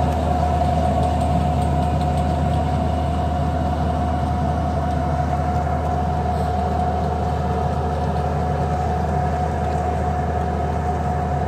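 Small farm tractor's engine running steadily while pulling a plastic mulch layer down the row, with a constant whine held over a low hum.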